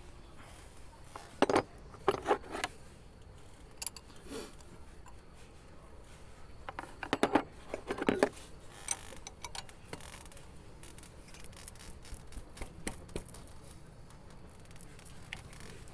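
Metal hand tools clinking and scraping against metal parts: a handful of sharp clinks, several in quick pairs, with quiet gaps between them.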